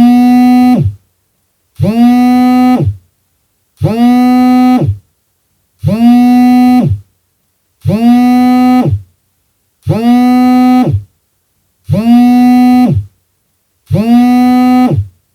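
Mobile phone vibrating: eight buzzes of about a second each, one every two seconds, each a steady low buzz that winds up at the start and winds down at the end, like an incoming-call vibration pattern.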